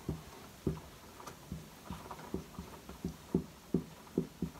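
Dry-erase marker writing on a whiteboard: a run of short, uneven strokes, a few a second, as letters are written.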